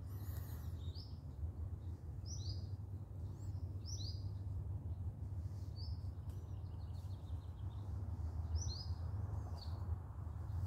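Small birds chirping in short, quick clusters of high notes every second or two, over a steady low rumble.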